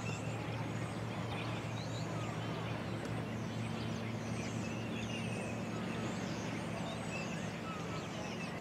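Outdoor ambience: small birds chirping and twittering over a steady low hum of distant traffic.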